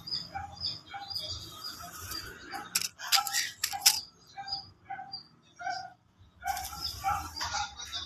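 Conures chirping in short repeated notes, about two a second, with a burst of wing flapping around three to four seconds in as one flies to a hand.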